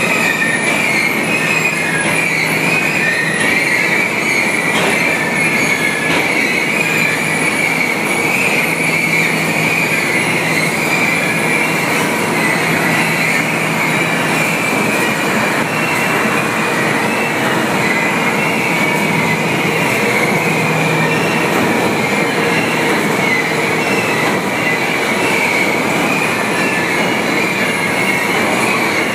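Heyl & Patterson continuous barge unloader running while unloading a grain barge: a loud, steady machinery din with a wavering high squeal over it.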